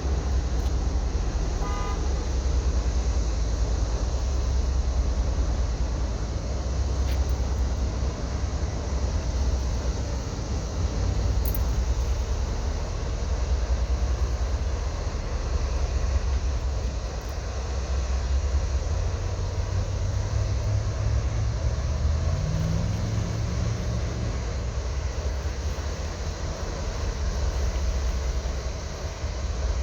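Engine of a vessel entering a lock, a steady low rumble whose pitch rises briefly about two-thirds of the way through.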